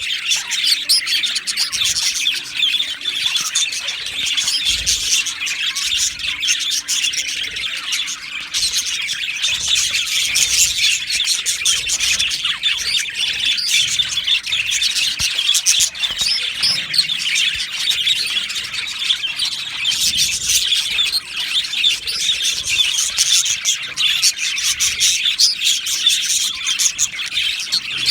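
A flock of budgerigars chirping and chattering over one another in a steady, unbroken twitter, with the odd squawk.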